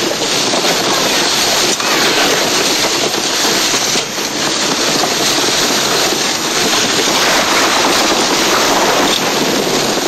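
Loud, steady rushing noise of wind buffeting the camcorder microphone, mixed with road noise from riding along the pavement behind a towing vehicle.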